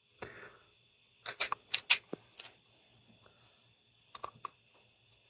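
Light metallic clicks and taps from a hex key and a flex head ratchet being handled as the ratchet is taken apart: a quick cluster of about five clicks a second in, a few scattered ones after, and another short cluster of three near the end.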